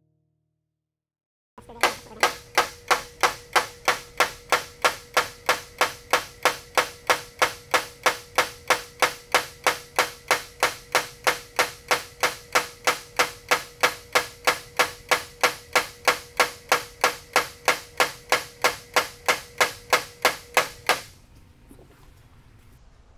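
Mortar jolting table compacting fresh cement mortar in a steel three-prism mold: a steady run of about sixty sharp metal drops, roughly three a second, each with a short ring. It starts about two seconds in and stops a couple of seconds before the end.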